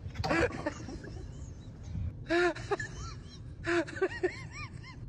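A bird calling in three short bursts of squawks and chirps: one near the start, one a little past two seconds in, and one near four seconds in.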